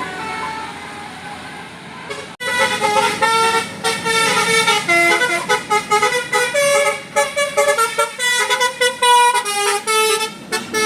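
A bus's Basuri telolet horn playing a quick tune of many short notes that step up and down, starting suddenly about two seconds in. Before it, quieter vehicle sound with a few faint tones.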